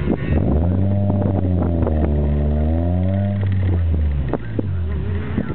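Honda del Sol's four-cylinder engine heard from inside the cabin: the revs climb sharply about half a second in, hold, then fall away gradually and drop off near the end.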